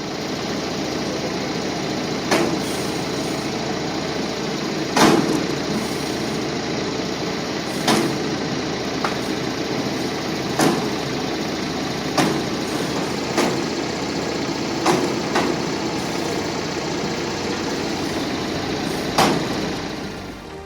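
Engine-driven firewood processing machine running steadily, with about eight sharp knocks spaced irregularly a second or more apart.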